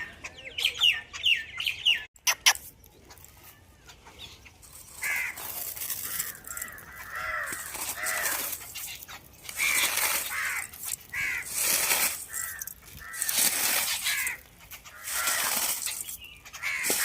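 Crows cawing over and over, a harsh call roughly every second from about five seconds in. Near the start there is a run of quick high chirps and a couple of sharp clicks.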